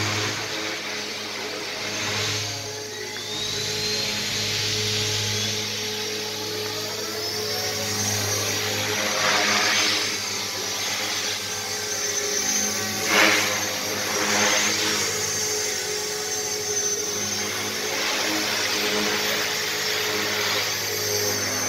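Radio-controlled model helicopter in flight: a steady rotor hum with a higher whirring whine that swells and fades several times as it flies past, loudest briefly about two-thirds of the way through.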